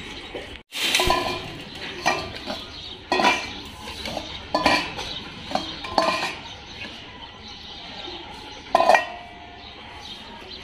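Stainless steel dog bowls clanking and clinking as they are handled: irregular sharp metal knocks, each with a short ring, the loudest near the end.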